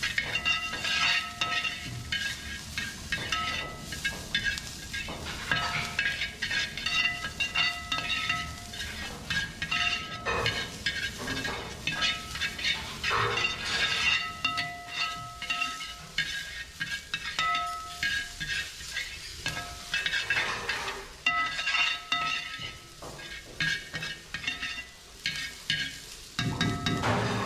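Slotted metal spoon scraping and clinking against a wide stainless-steel pan as green peas and onions cook and sizzle in it, over soft background music with held notes.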